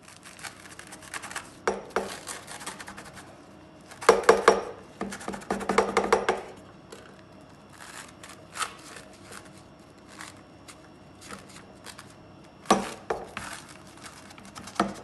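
Crisp, syrup-soaked kataifi crust of a baked knafeh crackling and crunching as it is cut into, a dense run of small crackles with louder stretches about four seconds in and again near the end.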